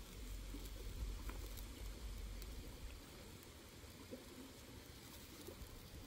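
Quiet riverside ambience: a steady low rush from the shallow river, with a few faint scattered crackles from the wood campfire under the cooking pan.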